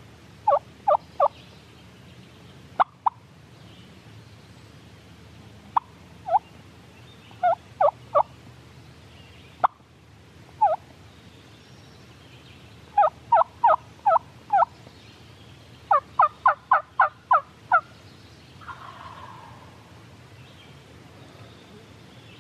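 Turkey yelping: loud, close, short yelps, first in ones and twos, then two quick runs of about six and about nine yelps in the second half. Two sharp clicks fall in the first half.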